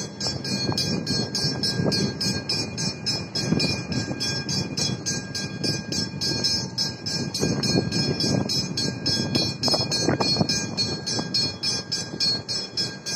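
Railway level crossing warning bells ringing steadily, several strikes a second, over the low rumble of a passing train.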